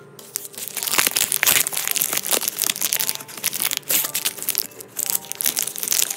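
A crinkly plastic blind bag being torn open and crumpled in the fingers, close to the microphone: a dense, loud run of crackling and rustling that starts a fraction of a second in and goes on with short pauses.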